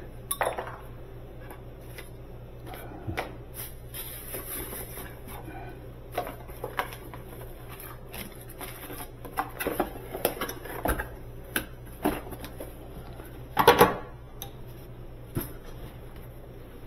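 Small metal parts and tools clinking and knocking as they are handled during refrigerator repair work, with one louder clatter near the end, over a steady low hum.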